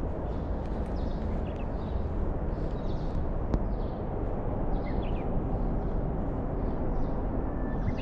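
Strong wind buffeting the microphone in a steady low rumble, with a few brief bird chirps above it.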